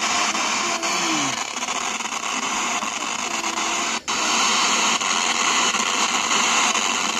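GAONA AK-5590 AM/FM radio receiver hissing with loud static from its speaker as the tuning knob is turned between stations, faint snatches of sound breaking through. The static cuts out for an instant about four seconds in. The radio, after its transformer repair, is powered and receiving.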